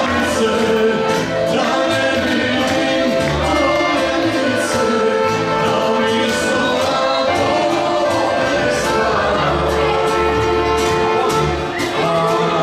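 Live band of accordion, upright double bass and acoustic guitar playing a song, with sung vocals over it.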